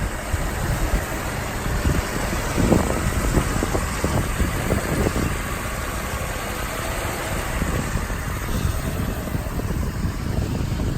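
Mercedes-Benz 560SL's 5.6-litre V8 idling steadily, with a few soft knocks about three to five seconds in.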